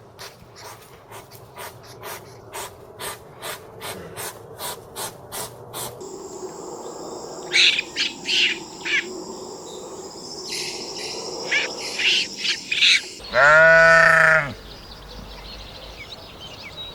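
A sequence of animal recordings. First comes a regular run of short, sharp clicking calls, about two or three a second. Then birds chirp over steady high whistling tones, and about two-thirds of the way through one loud, drawn-out bleat sounds.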